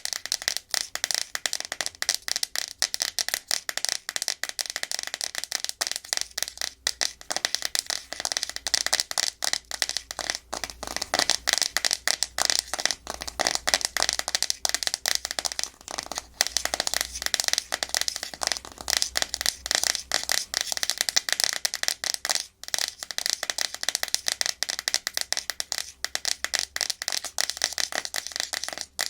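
Natural fingernails tapping and scratching fast and hard on a hard plastic surface: a dense, continuous run of quick clicks mixed with scraping.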